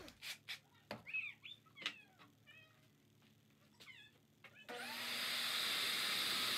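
A few light knocks and short high squeaks, then a shop vacuum hooked to a pocket-hole jig's dust port switches on about three-quarters of the way in and runs with a steady rushing hiss and a low hum.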